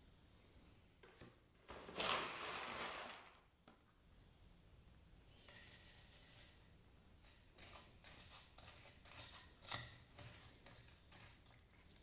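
Dry crunchy fruit-and-nut millet muesli rustling and pattering as it is tipped from a metal spoon into a bowl of yogurt: a loud rustle about two seconds in and a softer one around six seconds. Then small clicks and scrapes of the spoon against the bowl as it is stirred.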